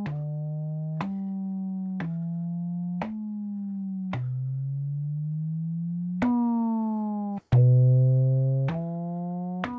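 Roland MC-909 groovebox playing a monophonic synth line, a new sustained note about once a second, with portamento in 'note' mode. Some notes slide in pitch toward the next and one slow rising glide runs through the middle. The notes grow louder near the end.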